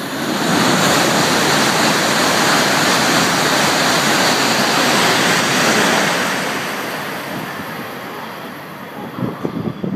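E5 and E3 series Shinkansen, coupled together, passing through the station at speed: a loud rush of air and wheel noise that swells within the first second, holds for about five seconds, then fades as the train draws away. A few irregular gusts of wind hit the microphone near the end.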